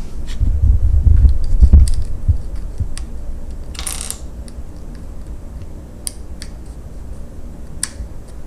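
Plastic LEGO bricks clicking and rattling as they are handled and pressed together, with low thumps in the first two seconds and a short rustle about four seconds in.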